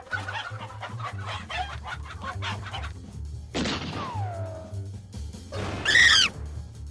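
Cartoon chicken clucking over a low film-score music bed, followed about three and a half seconds in by a long falling glide and, around six seconds in, a loud arching cry that is the loudest sound.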